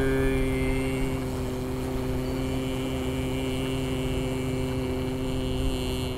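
A man's voice holding the qigong healing sound 'chui' for the kidneys on one steady pitch as a long, slow exhalation. It stops about six seconds in.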